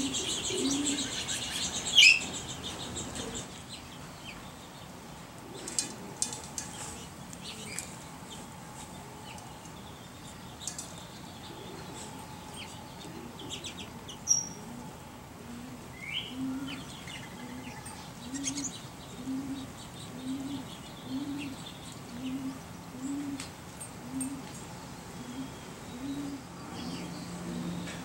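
Small songbirds, sparrows, giving short high chirps, with one loud, sharp downward chirp about two seconds in. In the second half a dove coos low and steadily, about once a second.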